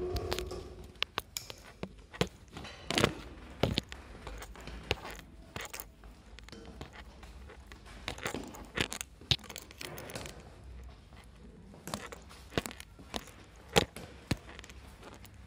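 Footsteps in sneakers and the tip of a walking cane knocking on a hard floor, sharp knocks at irregular intervals as the walker paces their steps to the cane.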